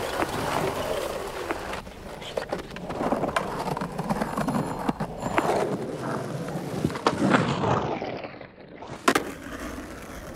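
Skateboard rolling on pavement: a steady rumble of the wheels, with scattered clicks and one sharp clack about nine seconds in.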